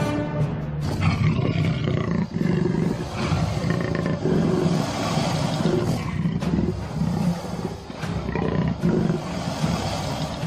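An animal roaring over and over, with background music underneath.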